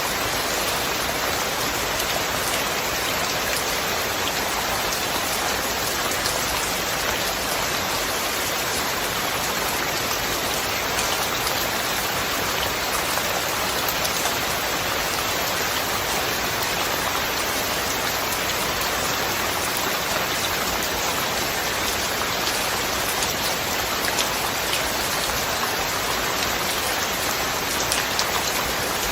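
Steady rain falling, an even hiss with scattered faint drop ticks and no thunder.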